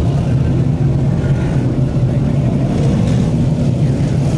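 A pack of big-block DIRTcar Modified racecars running on the track, a loud, steady engine drone.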